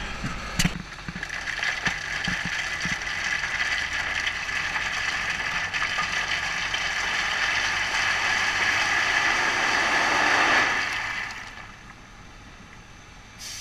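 A load of 4 x 6 rock sliding and rattling out of a raised dump truck bed, a dense clatter that builds steadily and then dies away quickly about eleven seconds in, leaving the truck's engine running.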